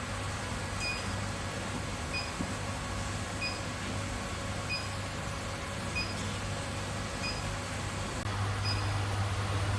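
Induction melting machine running with a steady electrical hum and hiss, while a short high beep repeats about every 1.3 seconds. The hum grows louder about 8 seconds in.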